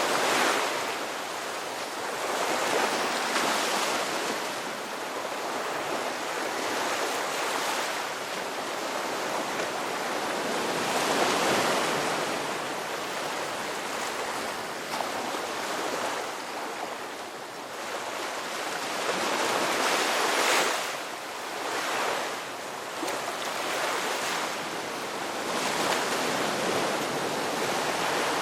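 Ocean surf: waves breaking and washing up the shore in a steady rushing noise that swells and ebbs every few seconds.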